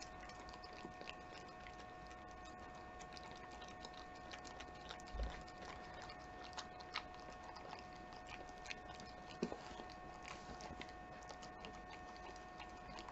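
A Keeshond dog chewing and licking food off a spoon: faint, irregular small clicks and smacks, with a low thump about five seconds in and a sharper click near nine seconds.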